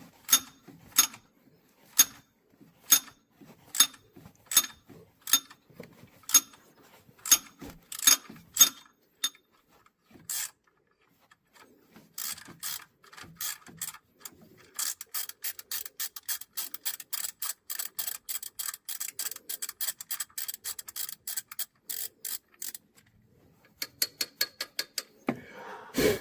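Hand ratchet wrench clicking: separate clicks about two a second for the first several seconds, then a fast, even run of clicks for about eight seconds. A louder knock comes near the end.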